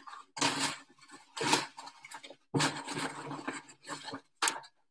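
Rummaging through a trash can for a discarded fragrance-oil bottle: irregular bursts of rustling and scraping as the bag and its contents are pushed about.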